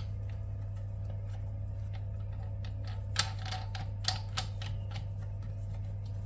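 A few sharp clicks and taps of small plastic and metal toilet-seat hinge parts being handled and fitted, a little past three seconds in and twice more around four seconds, over a steady low hum.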